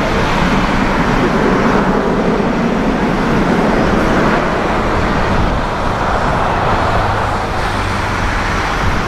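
The four jet engines of a Boeing 747-400 freighter at takeoff thrust during its takeoff roll, a steady loud rush of engine noise.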